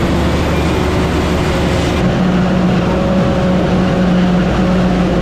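Heavy diesel farm machinery running steadily: a constant engine drone under a dense mechanical noise, with no change in pace.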